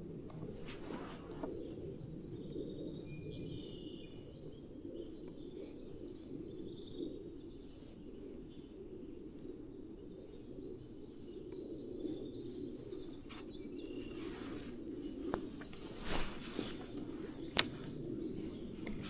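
Birds chirping over a steady low rushing background, with a few sharp clicks near the end.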